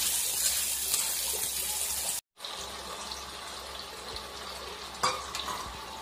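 Potatoes and masala sizzling in hot oil in a kadai while a spatula stirs them. About two seconds in the sound breaks off, then a quieter steady hiss of the masala with water just added, steaming and simmering, with one clack of the spatula on the pan near the end.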